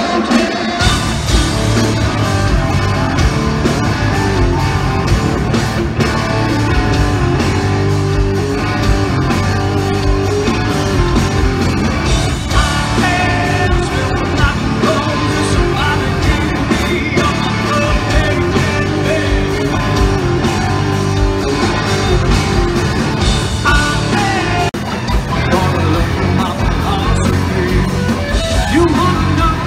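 Live rock band playing loud, with a singer over electric guitar, bass and drums.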